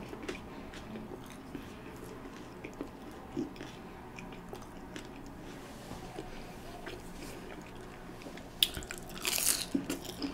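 Faint chewing and small mouth clicks, then, near the end, a loud crunchy bite into a beer-battered onion ring with a burst of crackling from the fried batter.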